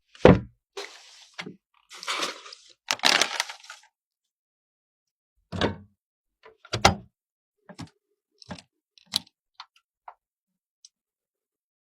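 Computer parts being handled: a sharp knock right at the start, which is the loudest sound, then two short scraping or sliding sounds. After a pause come scattered clicks and knocks, one every second or so, the loudest of them near the middle.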